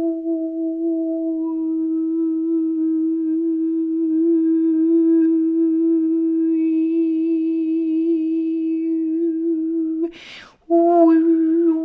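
A woman's voice humming one long sustained note in sound-healing toning, its overtones brightening for a few seconds in the middle. About ten seconds in she takes a quick breath, then picks up the same note again.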